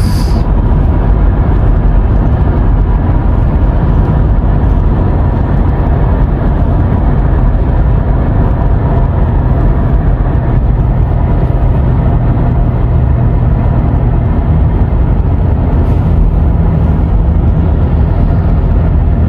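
Steady car cabin noise while driving: low rumble of tyres on the road with engine hum, heard from inside the car.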